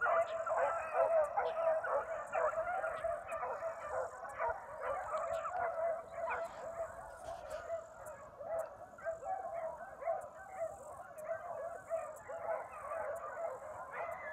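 A pack of beagles baying, many voices overlapping without a break, as they drive a rabbit on its track; the cry grows somewhat fainter after about six seconds.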